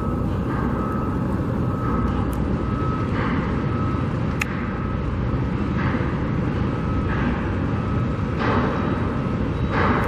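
Steady rumble of road traffic, with several vehicles swelling past in turn. A single-pitched beep repeats roughly once a second throughout.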